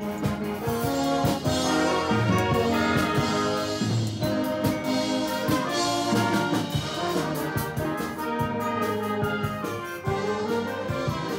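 Instrumental music led by brass, with a steady beat.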